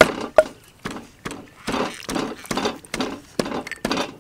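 Red plastic hand-held lime squeezer being pressed over and over, its plastic arms clacking together about twice a second as halved limes are crushed between them.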